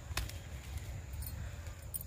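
A large unripe papaya set down into a woven wicker basket: one light knock shortly after the start, then a few faint ticks, over a steady low rumble.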